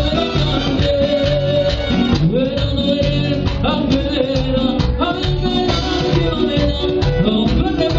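A small live band playing Latin dance music on electronic keyboard with a steady beat, with voices holding long notes over it, several of them sliding up into pitch.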